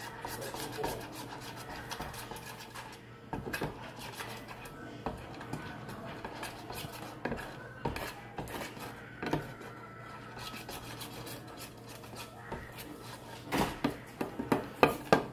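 A utensil stirring and scraping around a bowl, mixing colouring into slime glue, with a run of sharper taps against the bowl near the end.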